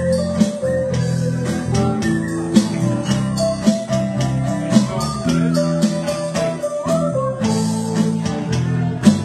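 Live band playing an instrumental passage: an electric guitar lead with string bends over bass guitar and a steady beat.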